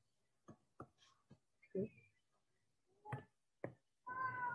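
Quiet, broken by about half a dozen faint, short clicks spaced irregularly, with a brief voice-like murmur near the end.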